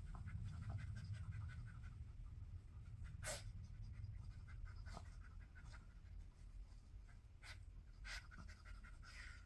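Senior Shih Tzu sniffing hard as she noses through the fleece strips of a snuffle mat for hidden treats, with soft rustling of the fabric. Faint, with a handful of louder short sniffs scattered through.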